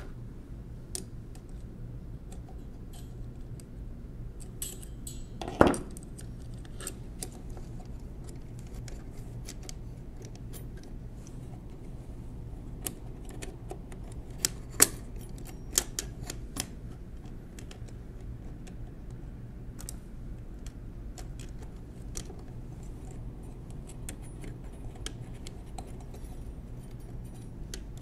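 Scattered small metallic clicks and clinks from the metal key bars of a Monroe Model K mechanical calculator keyboard being fitted by hand and with needle-nose pliers. Two sharper clacks stand out, one about six seconds in and one about fifteen seconds in, over a steady low hum.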